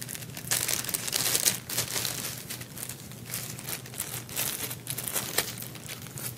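Plastic packaging crinkling and rustling in irregular bursts as it is handled, loudest in the first second and a half.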